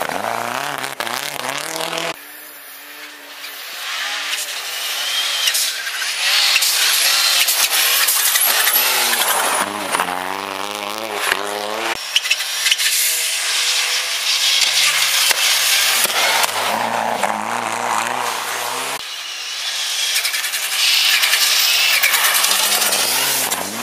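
Rally cars at speed on a snowy gravel stage, their engines revving hard and dropping in pitch at each gear change, over the hiss of tyres on snow and gravel. Several separate passes are cut together, with abrupt jumps in the sound.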